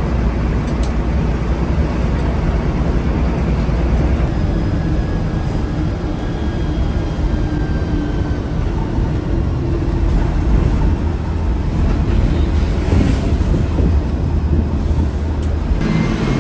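Bharat Benz sleeper coach driving at highway speed: a steady low engine and road rumble inside the cab.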